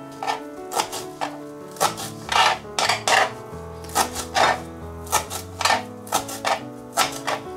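Kitchen knife chopping fresh herbs on a plastic cutting board: uneven chops, some sharp knocks and some longer rasping scrapes. Background music with held notes plays under them.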